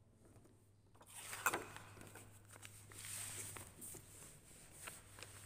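A large paper sketchbook with a card cover being handled: paper and card rustling and scraping from about a second in, with one sharp tap soon after and a few lighter knocks later. A steady low hum runs underneath.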